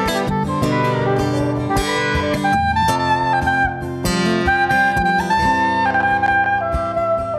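Soprano saxophone playing a slow melody of long held notes over strummed and picked acoustic guitar.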